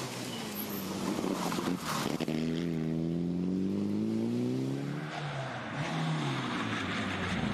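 A Mitsubishi Lancer Evolution rally car's engine runs hard under acceleration, its pitch climbing steadily, then breaking off about five seconds in and climbing again near the end. About two seconds in there is a brief loud rush of noise.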